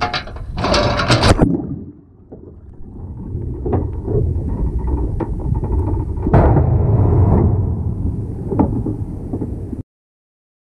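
A crab pot carrying a GoPro goes over the side of a boat: a loud splash and clatter in the first second and a half, then a muffled, steady low underwater rumble with a few sharp clicks as the pot sinks and settles on the sandy bottom. The sound cuts off suddenly near the end.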